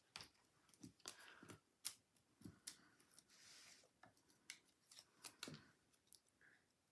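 Cardstock paper pieces handled on a tabletop: a string of faint clicks, taps and papery rustles, with a short rustle about three seconds in.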